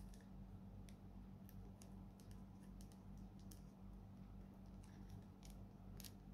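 Faint, scattered small clicks and crinkles of fingernails picking at the cellophane shrink-wrap on a trading-card deck box, trying to get it open, over a low steady hum.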